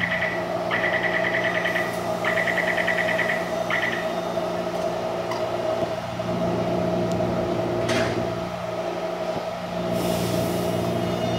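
Taipei Metro C321 electric train standing at the platform with its doors closing: the door-closing warning sounds as rapid high beeping in short bursts for the first four seconds over the train's steady hum. About eight seconds in there is a sharp click, and near the end a short hiss of released air, just before it departs.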